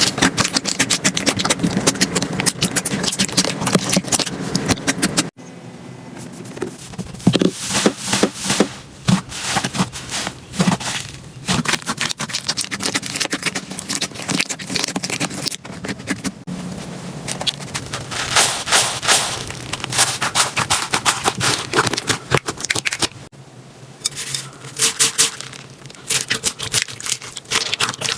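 Slime being squeezed and pressed by hand close to the microphone, giving dense crackling and popping clicks. The sound changes abruptly about five seconds in, again past the middle and again near the end, as different slimes take over.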